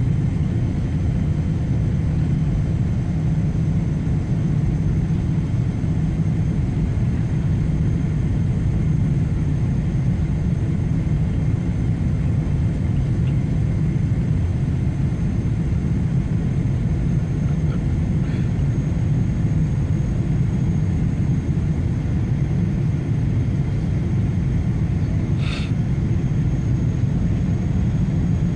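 Airliner cabin noise of a Boeing 777-300 on its landing approach, heard from a window seat over the wing: a steady low rumble of the engines and rushing air. A brief, sharp, higher sound comes about 25 seconds in.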